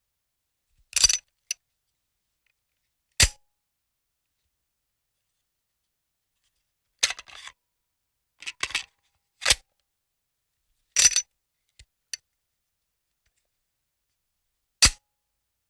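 Gun reload sound effect: about ten short, sharp mechanical clicks and clacks of a firearm being reloaded, some in quick pairs or clusters, with silent gaps between them.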